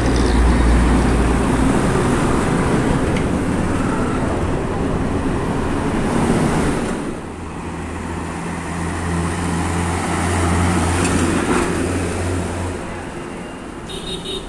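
Diesel engines of Tata trucks running in street traffic: one truck drives close past, loud and rough at first, then fading. Another truck's engine follows with a steady low hum as it approaches, then dies away. A short high-pitched beep comes near the end.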